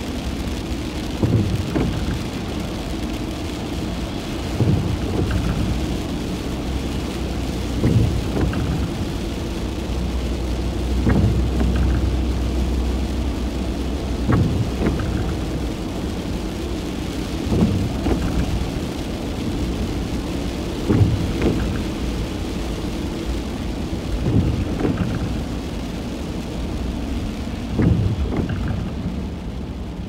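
Rain pattering on a car's windscreen, heard inside the cabin of a stationary car, with the windscreen wipers sweeping about every three seconds over the steady low hum of the idling engine.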